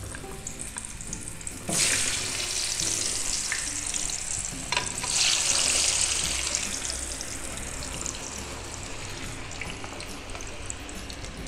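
Crinkle-cut raw potato fries dropped into medium-hot oil in a frying pan for their first par-fry: a low sizzle, then a sudden loud hiss a little under two seconds in as the first batch goes in, a second surge around five seconds as more are added, settling into a steady bubbling sizzle.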